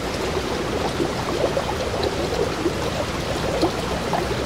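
Rushing stream water: a steady flowing rush with many small bubbling, gurgling notes.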